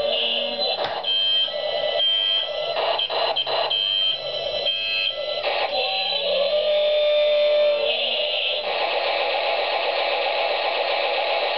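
Electronic, music-like tones with short pitch glides, giving way about nine seconds in to a steady static-like hiss.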